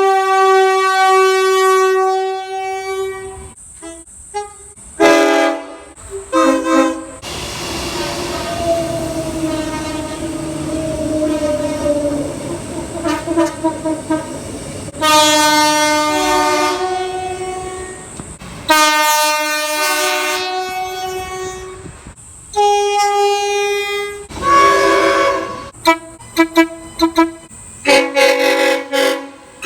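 Train horns sounding in a quick succession of separate clips, each a chord of several notes held for one to several seconds and cut off abruptly. In one longer clip near the middle the chord slides slowly lower in pitch.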